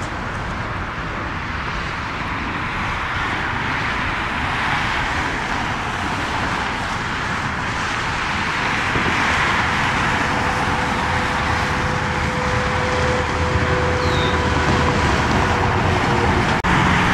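Jet airliner engines: a steady rushing noise that grows slowly louder, with a faint steady whine through the middle, and a brief dropout near the end.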